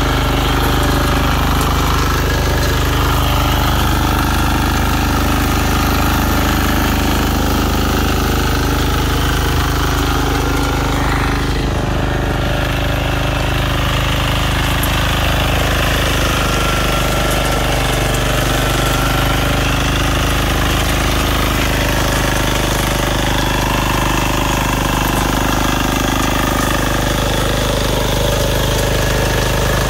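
Small engine of a walk-behind power weeder (mini rotary tiller) running steadily under load as its rotary tines churn the soil.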